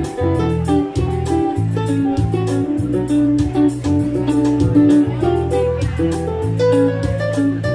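Live instrumental band music: an electric guitar played over a Korg keyboard, with sustained bass notes and a steady beat.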